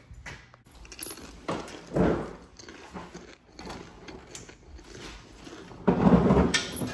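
Scattered clinks and clatter of hand tools being handled on a concrete garage floor, with a louder burst of handling noise about two seconds in and a longer, louder one about six seconds in.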